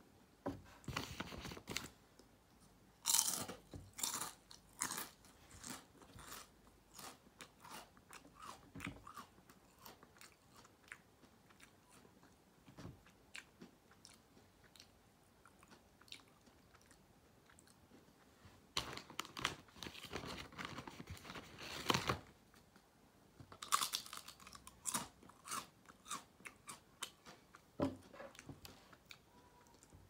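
Someone biting into and chewing ketchup-flavoured potato chips: runs of sharp crunches, the loudest near the start and again in the second half, with a quieter stretch of softer chewing in the middle.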